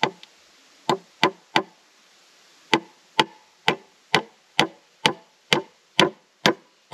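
Hammer blows nailing a frame of 2x6 lumber together: three quick blows, a short pause, then a steady run of about two blows a second.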